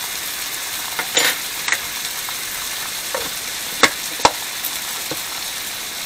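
Flour-coated mushrooms frying in butter in a skillet: a steady sizzle, with a few sharp clicks about a second in and again about four seconds in.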